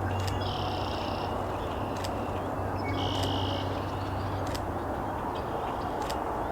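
Scattered single camera shutter clicks from nearby photographers, over a steady low outdoor hum. Two short, high buzzing sounds come about half a second in and again about three seconds in.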